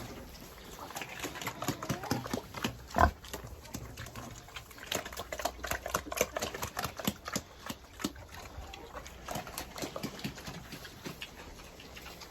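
Pigs grunting, among many short clicks and knocks, with one louder thump about three seconds in.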